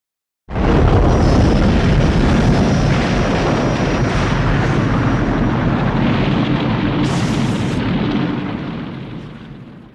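Moguera sound effect: a loud, rumbling blast that starts abruptly about half a second in and holds steady, with a brief high hiss about seven seconds in, then fades away over the last two seconds.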